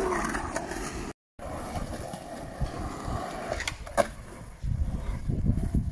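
Skateboard wheels rolling over concrete, with a sharp clack of the board about four seconds in and the rolling growing louder near the end. The sound drops out briefly about a second in.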